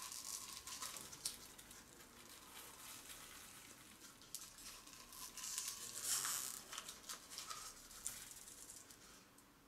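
Paper casing of an aerial firework shell crackling and tearing as its two halves are pulled apart by hand, with loose granular contents pattering into a ceramic bowl. Mostly scattered small crackles, with a louder rustle about six seconds in.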